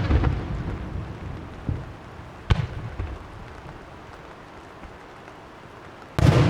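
Aerial fireworks shells bursting. A deep boom fades away at the start with a rumbling crackle, a single sharp bang comes a couple of seconds later, and another big boom hits near the end.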